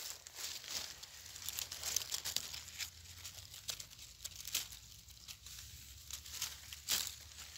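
Dry fallen leaves crackling and rustling in small irregular crunches, as they are trodden on and pushed aside, with one sharper crackle near the end.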